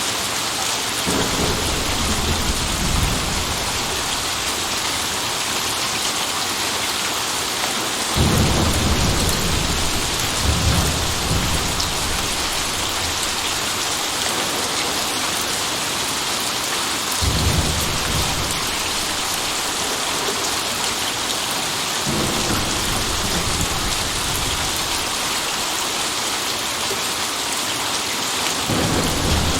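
Steady heavy rain hissing on a surface, with low thunder rumbles rolling in five times; the loudest starts about eight seconds in and rumbles on for several seconds.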